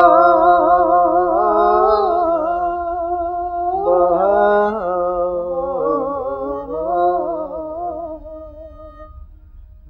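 A man's voice chanting in long, held, wavering notes, a devotional hum-like melody without clear words. A new phrase rises about four seconds in, and the chant fades away near the end.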